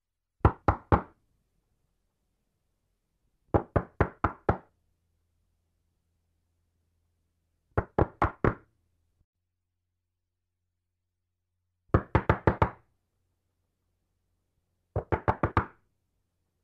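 Knocking on a door: five bursts of quick raps, three to six knocks in each, with a few seconds of silence between bursts.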